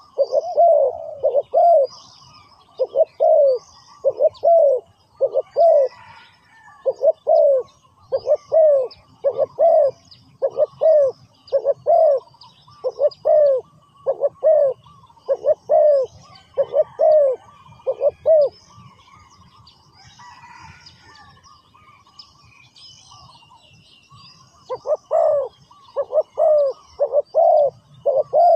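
Spotted dove cooing over and over, a steady run of low coos a little over one a second, the calling of a decoy cu gáy set out to lure wild doves. The cooing stops about two-thirds through and starts again near the end, with faint chirps of small birds higher up.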